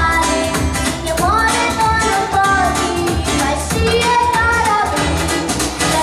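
A young girl singing into a microphone, amplified, over backing music with a steady beat.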